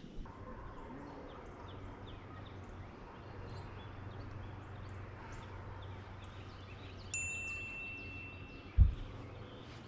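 Outdoor ambience: a steady low rumble with faint, scattered high bird chirps. About seven seconds in, a high steady whistle-like tone sounds for about a second and a half, and near the end there is a single loud, low thump.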